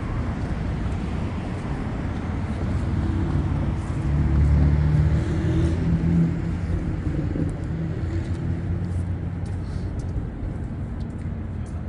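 Street traffic rumbling steadily, with one motor vehicle's engine growing loudest about four to six seconds in and then fading back into the traffic noise.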